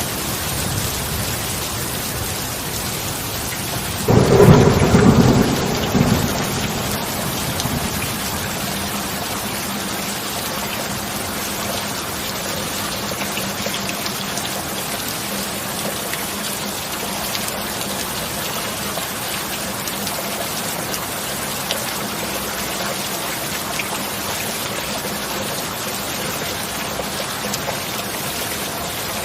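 Steady heavy rain hissing, with one loud thunderclap about four seconds in that rumbles for two or three seconds and dies away, leaving the rain.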